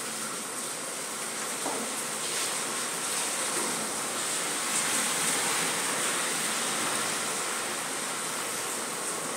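Steady room noise: an even hiss with a faint high-pitched whine running through it, and one or two faint ticks near two seconds in. No shot is played.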